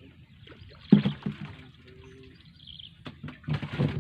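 Water splashing in two bursts, a short sharp one about a second in and a longer one near the end.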